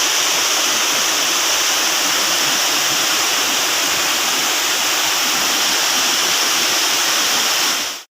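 Steady, loud rush of flowing water from a rain-swollen river or waterfall, cutting off abruptly near the end.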